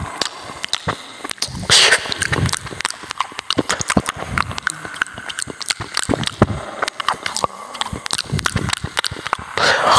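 A chocolate Labrador eating raw meat and vegetables off a plate: close-up chewing, licking and smacking, a rapid irregular run of clicks with a louder crunching burst about two seconds in.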